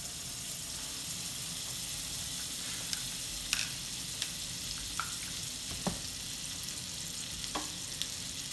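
A pat of butter melting and sizzling in a hot frying pan: a steady high hiss with a few small pops scattered through it.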